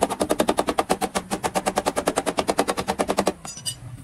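A hammer tapping rapidly on the steel rocker panel's welded seam, about a dozen sharp metallic strikes a second. The strikes stop about three seconds in.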